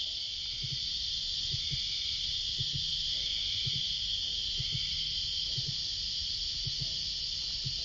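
A summer chorus of cicadas makes a steady, high, sizzling drone, with a fainter pulsing call repeating about once a second. Soft low double knocks come at about the same rate underneath.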